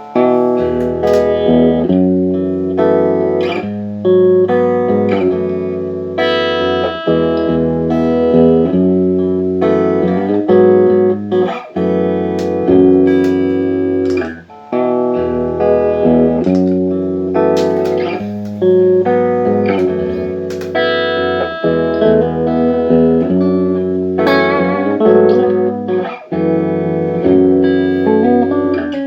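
Guitar played through a Boss RC-1 looper pedal being tested after repair: a steady run of chords and single notes, each chord over a held low bass note.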